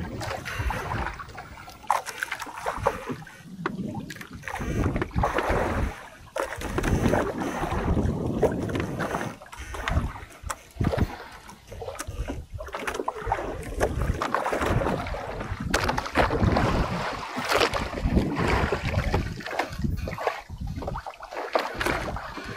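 Wind and water noise on a small fishing boat at sea, rising and falling irregularly, with a few scattered knocks.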